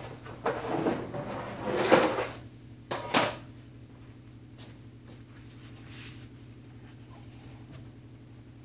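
Metal engine casting clattering and knocking as it is handled and set down in a cardboard box. There are a few knocks in the first three seconds, the loudest about two seconds in. After that only a steady low hum remains.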